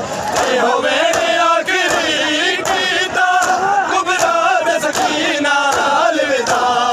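A crowd of Shia mourners chanting a lament in unison over matam: bare hands slapping bare chests in a steady beat, about twice a second.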